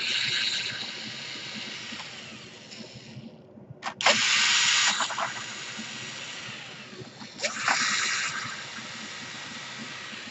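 Hard plastic laptop case parts being scraped and pried apart by hand during disassembly: three rasping scrapes of about a second each, at the start, about 4 s in and about 7.5 s in, with small plastic clicks between them.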